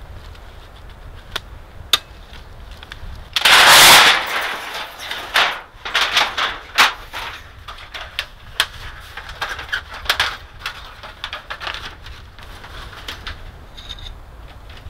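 Metal tent-stove chimney pipe being pulled out and handled. A loud sliding scrape comes a little over three seconds in, then a run of sharp metallic clinks and knocks as the pipe sections are worked and fitted.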